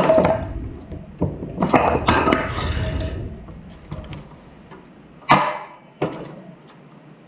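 Workshop handling noise: knocks and clatter of tools and metal parts, with a longer rattling stretch about two seconds in and one sharp ringing knock after about five seconds.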